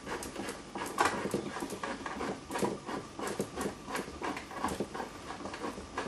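A hand and arm rubbing close to the microphone while a switch's mounting screw is threaded in by hand: a steady run of soft, irregular scratches and clicks.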